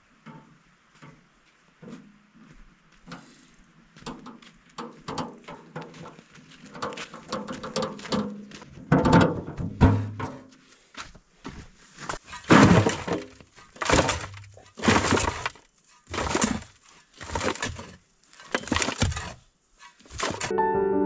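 A run of sharp knocks or crashes, faint and irregular at first, then loud and evenly spaced at about one a second over the second half before stopping.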